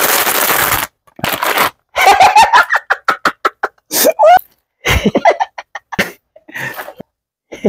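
Packaging rustling and crinkling in short bursts as a parcel is opened, with a dense rustle in the first second, then scattered sharp crackles and bits of brief laughter.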